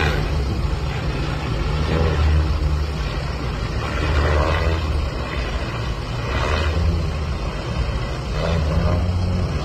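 Pilotless multirotor eVTOL passenger air taxi flying in the open, its rotors giving a steady low drone.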